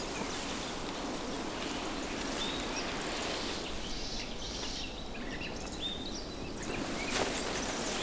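Steady outdoor ambience, an even hiss, with a few faint short bird chirps about two to four seconds in.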